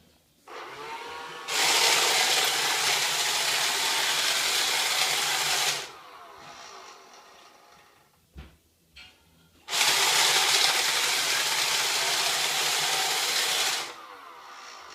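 Roomba Discovery robot vacuum's motors running in two loud bursts of about four seconds each, starting and stopping abruptly, with a short knock between them. This is the behaviour the owner takes for the Roomba's "circle dance" fault.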